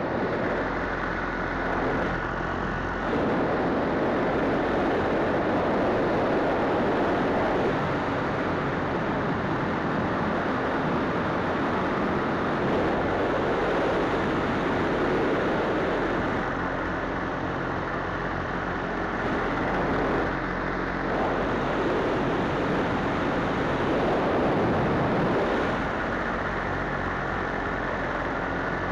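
Paramotor engine and propeller running steadily in flight, the sound swelling and easing several times.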